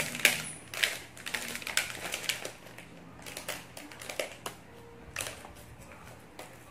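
Plastic packaging of a mochi box being unwrapped: the film wrapper crinkles and the plastic tray clicks as a mochi is lifted out. Irregular crackles and clicks, busiest in the first two or three seconds, then sparser.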